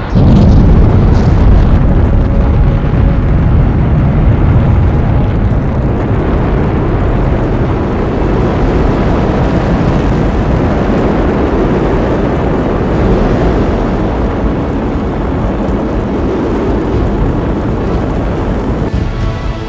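Space Shuttle at liftoff, its solid rocket boosters and main engines firing: a loud, deep rocket noise that starts suddenly and holds steady, easing slightly as the vehicle climbs away.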